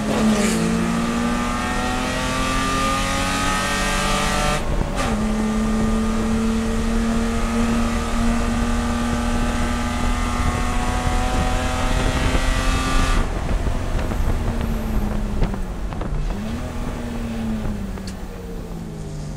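BMW E30 race car's inline-six engine under hard acceleration, revs climbing, with a quick upshift about five seconds in. It then pulls at high revs until the driver lifts, and the revs fall through two downshifts with throttle blips near the end.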